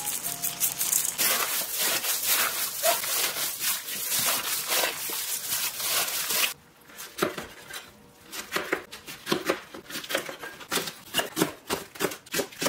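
Kitchen preparation sounds: a dense crackling rustle for about the first six seconds that cuts off abruptly, then scattered light knocks and taps.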